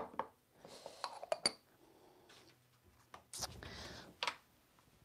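Paint containers being handled on a work table: a sharp knock at the start, a few light clinks about a second in, then a brief rustle with a dull thud and one more click.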